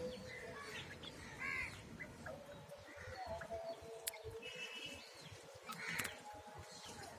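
Birds calling: scattered short chirps and calls, with a sharp click about four seconds in.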